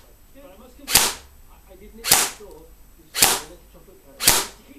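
Tokyo Marui MP5 airsoft gun firing single shots, four sharp cracks about a second apart, with the BBs punching into a cardboard box.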